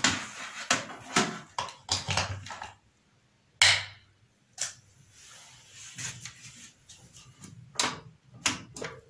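Scattered clicks and rustles of hands working on a Sharp CRT television, the loudest a sharp crack about three and a half seconds in, then the set's front power button clicked a couple of times near the end. The set stays dead, with no power-up sound: its power supply is faulty.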